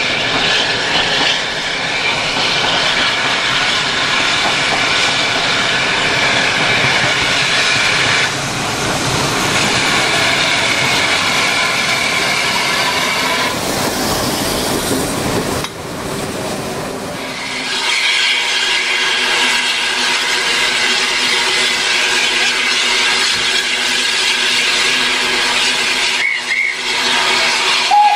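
Steam-hauled passenger train running past on curving track, its wheels squealing against the rails over the rumble of the carriages. About two-thirds of the way in the sound changes to a steady hiss from a standing steam tank locomotive.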